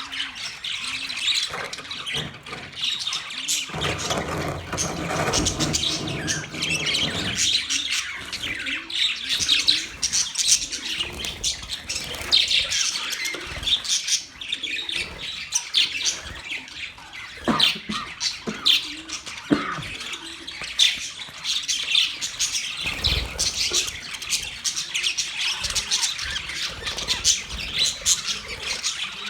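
Budgies chattering and squawking, a dense, continuous stream of rapid high chirps from several birds, with a low noise underneath for a few seconds near the start.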